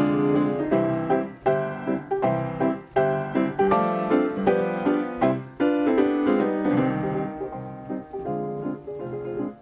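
Player piano playing a tune, chords and melody notes struck several times a second, growing softer in the last couple of seconds.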